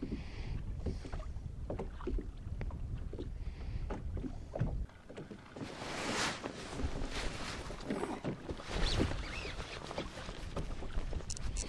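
Small waves slapping and splashing against a kayak's hull, with wind rumbling on the microphone; the splashing grows busier about halfway through.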